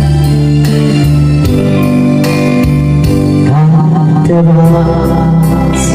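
Instrumental introduction of a slow Korean ballad: sustained chords over a steady bass line, with no vocals yet.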